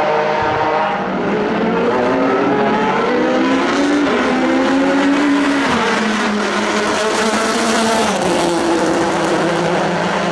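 Racing V6 engine of a Pilbeam MP93 LMP2 prototype (JPX/Mader) at high revs, its note climbing as it accelerates, then dropping around six seconds in and again around eight seconds in.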